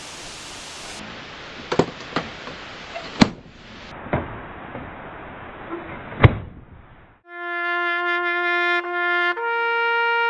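Hiss with several sharp clicks, turning duller in two steps and cutting off about seven seconds in. Then a trumpet-like brass note is held and jumps to a higher note about two seconds later.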